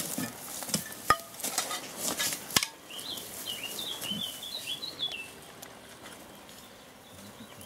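Rustling and clattering of gear and movement through dry grass, with three sharp clicks in the first three seconds. Then a bird chirps a quick run of high notes for about two seconds.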